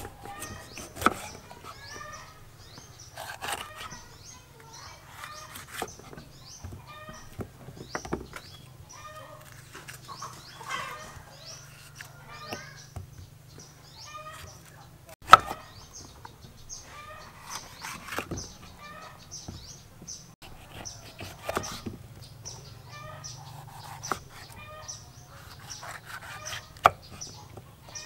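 Kitchen knife cutting through bell peppers and knocking on a wooden chopping board, with sharp knocks every second or two and the loudest about halfway through. Chickens cluck in the background throughout.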